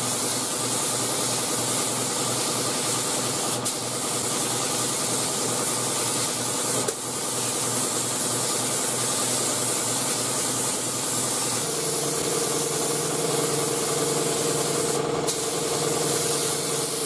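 Gravity-feed air spray gun hissing steadily as it sprays clear coat, with a steady hum underneath that grows louder about two-thirds of the way through. The hiss breaks off for a moment near the end.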